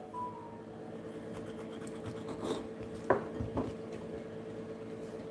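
A knife cutting a lemon on a wooden cutting board, with a few light knocks of the blade against the board, over a faint steady hum.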